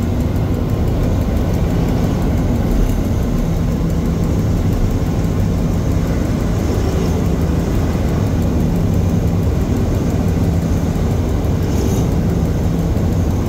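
Diesel shunting locomotive's engine running steadily, heard from inside the cab as it moves slowly along the platform track: a constant low drone with a steady hum.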